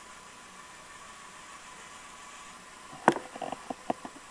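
Digitrax sound decoder playing a GE U33C diesel prime mover sound at idle through a tiny model-locomotive speaker, faint and steady. About three seconds in come a sharp click and a quick run of further clicks and knocks.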